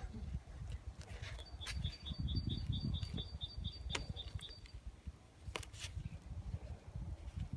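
Hands pressing duct tape onto a folded paper towel on a wooden table, making soft rustling and handling knocks, with sharp clicks about four and five and a half seconds in. A bird chirps in the background, a quick run of high chirps at about four a second, for about three seconds.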